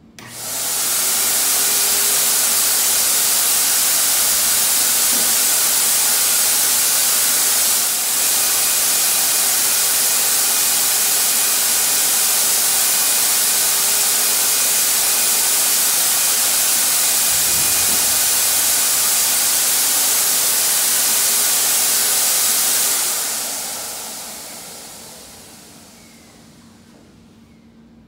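HVLP turbine sprayer's turbine motor switched on, spinning up within about a second to a loud, steady rush of air with a faint whine. About 23 seconds in it is switched off and winds down over a few seconds.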